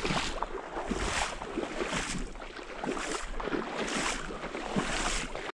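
Rhythmic swishing and splashing of marsh water, about one stroke a second, that cuts off suddenly near the end.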